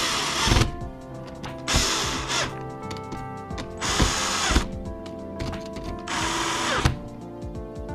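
Cordless drill/driver running in four short bursts of under a second each, spaced about two seconds apart, as it drives down the screws of a 12-way barrier terminal block.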